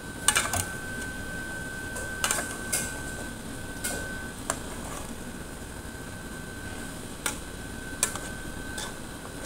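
Metal ladle stirring meat in an aluminium cooking pot on a gas stove: scattered knocks and scrapes of the ladle against the pot, about nine in all. They sound over a steady hiss and a thin high whine, which drops out for a few seconds midway.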